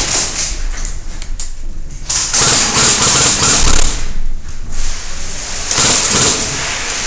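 Systema PTW CQB airsoft rifle firing on full auto: a rapid mechanical rattle in long bursts, breaking off about a second in and again past halfway, then resuming.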